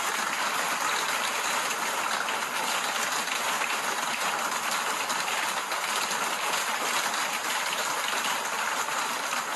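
Hailstorm: hail and rain falling hard, a dense, steady hiss of countless small impacts.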